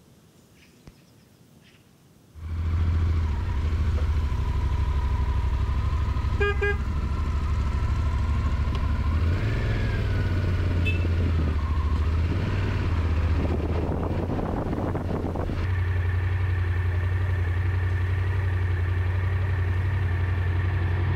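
Motorcycle engine running with a steady low drone that starts abruptly about two seconds in, its pitch rising and falling briefly around the middle. A short horn toot sounds about six seconds in.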